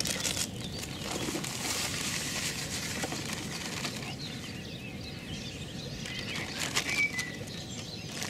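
Dry fishing groundbait poured from a plastic packet into a plastic bucket: a rustling, hissing pour for a few seconds, with the packet crinkling and softer handling noises after it.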